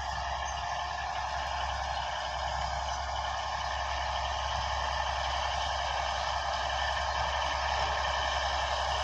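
Komatsu D155A bulldozer's diesel engine running steadily under work, getting slightly louder toward the end.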